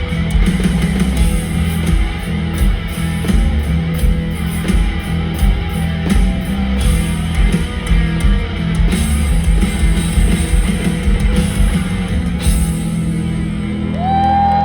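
Live rock band playing at full volume: electric guitars, bass guitar and drum kit, as heard in a concert arena. Near the end a single high tone slides up and is held.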